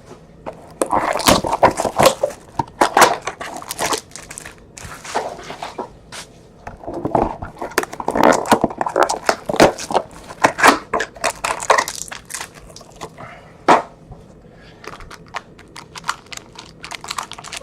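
Trading cards and their plastic wrapping being handled: crinkling, rustling and sharp clicks in irregular bursts, with a single sharp click near the end.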